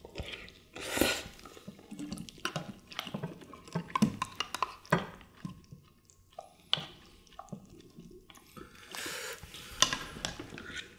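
A spoon and other utensils clinking and scraping against ceramic bowls in short, irregular strokes as rice is mixed with boneless soy-marinated crab meat.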